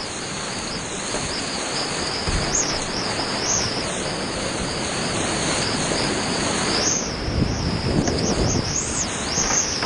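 Rushing whitewater rapids: a steady, dense rush of water noise with a wavering hiss high above it.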